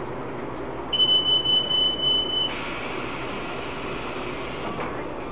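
Door-closing warning beep of a Taiwan Railways EMU800 commuter train standing at a station: one steady high-pitched beep of about a second and a half, then about two seconds of hiss, over the steady hum of the train's equipment.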